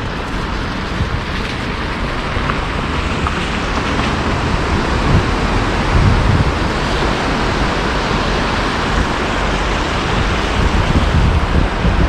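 Wind buffeting the microphone as a rough, uneven rumble, over a steady wash of city traffic noise; the wind grows stronger near the end.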